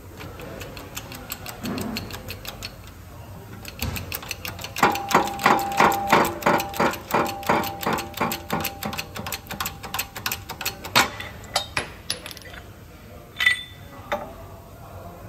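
Hydraulic shop press at work pressing the gear and bearing off a Subaru 4EAT transmission top shaft: a long run of regular metallic clicks, about four a second, with a steady tone under them. Near the end comes one louder sharp bang, then a few lighter clicks and a single metal clink.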